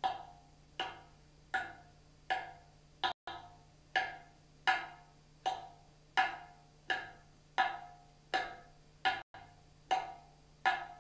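Kik strokes on the clay rim of a ceramic darbuka, hit with the first joint of the fingers: a sharp, cowbell-like knock repeated evenly about every three-quarters of a second, each with a short ring.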